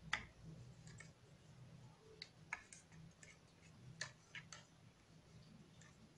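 Spoon stirring plain yogurt, grated garlic and honey in a glass: faint, irregular clinks and taps against the glass.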